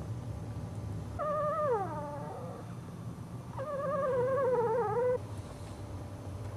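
Two-week-old Cairn Terrier puppy whining twice: a first call about a second in that slides down in pitch, then a longer, louder, wavering whine that stops abruptly.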